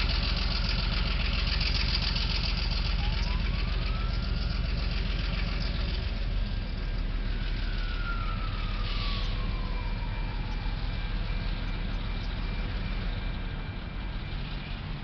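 Diesel locomotive engine running as the train rolls slowly through a level crossing, getting quieter toward the end. A single slow rising-then-falling wail sounds faintly over it in the middle.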